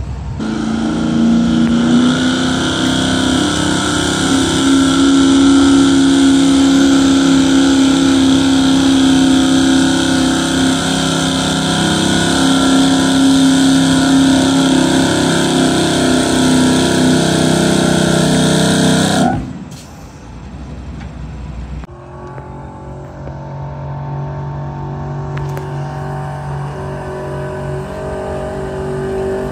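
Gas-engine street pickup truck pulling a weight-transfer sled, its engine held at high, steady revs under full load for about 19 seconds. The throttle then cuts off suddenly, and a much quieter engine sound runs on.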